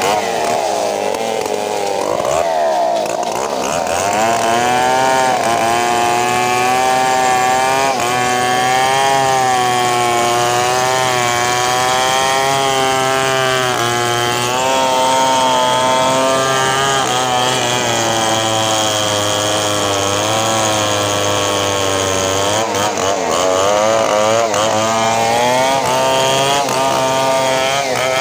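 Large Stihl 070 chainsaw running at high revs while ripping lengthwise through a big bengkirai hardwood log. Its engine pitch sags and wavers for the first few seconds and again about 23 seconds in, and holds steady in between.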